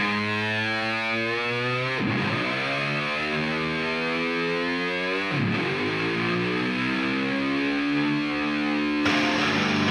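Music track of distorted electric guitar with long notes sliding upward in pitch. The slides break and restart twice, and the music changes to choppy strumming near the end.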